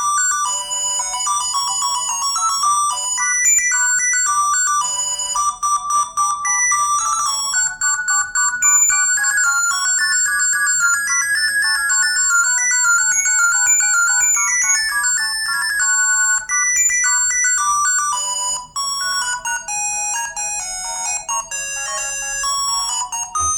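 ZTE V617 mobile phone ringtones playing: electronic melodies of quick, stepping notes. About three-quarters of the way through there is a short break, and a different tune begins.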